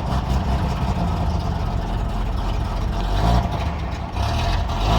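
Peugeot 505's V6 engine running just after catching from a hard start, following months of sitting unused. It idles steadily, and its pitch rises briefly a little past three seconds in.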